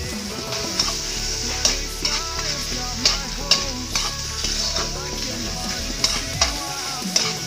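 Sliced sausage, ham, onion and garlic sizzling in oil in a wok while a spatula stirs them, with sharp scrapes and clacks of the spatula against the pan about once a second.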